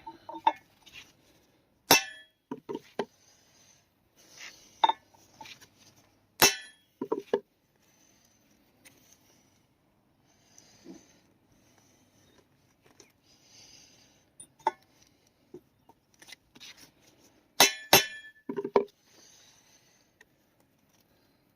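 Sharp metallic clinks of hand tools on a U-joint while its retaining clip is being seated: single ringing strikes about two and six seconds in and a quick pair near the end, with quieter handling noise between.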